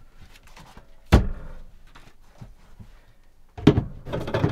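A pull-out pantry drawer shut with one sharp thump about a second in, followed near the end by a short clatter of glass bottles being set down on a wooden counter.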